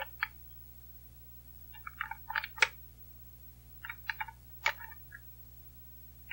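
Rifle cartridges being pressed one at a time into an AK magazine: a cluster of small metallic clicks about every two seconds, each cluster ending in one louder click.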